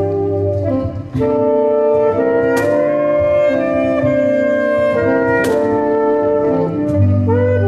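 Instrumental music with long held chords in a wind-instrument timbre, and two sharp struck accents that ring on.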